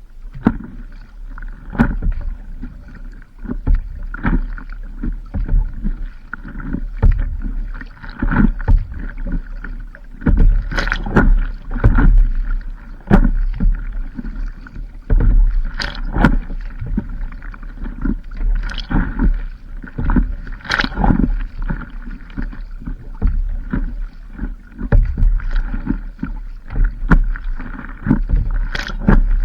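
Paddling on a stand-up paddleboard at sea: paddle strokes and water splashing and slapping against the board, irregular hits about once a second over a low rumble.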